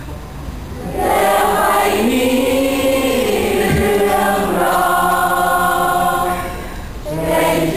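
Background music: voices singing a slow song in long held notes, quieter for the first second and again briefly near the end.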